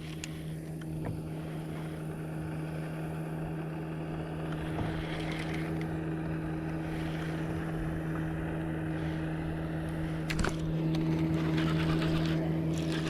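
Boat motor running steadily with an even low hum, with a single sharp knock about ten seconds in, after which the motor sounds a little louder.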